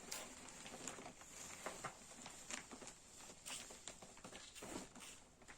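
Quiet room with faint, scattered rustles and light taps, such as a present and its packaging being handled.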